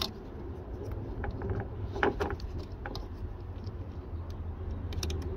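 Scattered light clicks and rustling of plastic wiring-harness connectors being handled and plugged together at an LED headlight bulb, over a low steady rumble.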